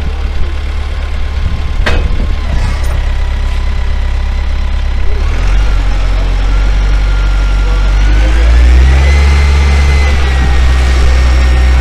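An engine running steadily, then speeding up about eight seconds in, its pitch rising and holding higher. A sharp knock comes about two seconds in.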